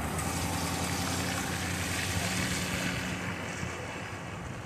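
Road traffic passing close by: a pickup truck pulling away over the crossing and a truck towing a flatbed trailer going by, engines running steadily with a rush of tyre noise that fades toward the end.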